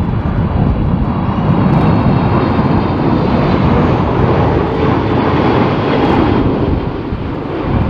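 Jet airliner's engines running loud and steady as it passes close, a dense rumble with a faint whine above it, easing off a little near the end.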